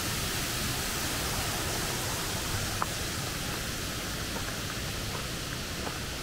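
Steady rushing water of a waterfall in a stream, with a few faint clicks.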